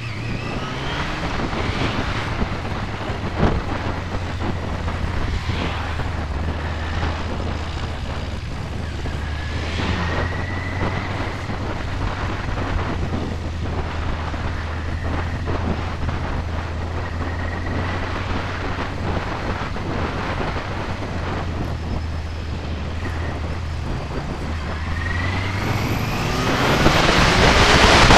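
1999 Yamaha YZF-R6's inline-four engine running at a steady cruise, with wind rushing over the microphone. Near the end the engine note rises and the wind noise grows much louder as the bike speeds up.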